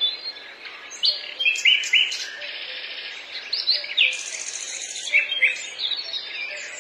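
Small birds chirping and calling, many short high chirps overlapping, with a brief fast trill about four seconds in.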